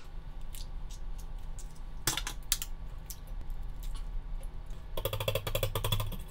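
Eggs cracked on the rim of a ceramic bowl: a few sharp knocks of shell in the first half. Near the end a wire whisk beats the eggs in the bowl with rapid, even clicks of wire against ceramic.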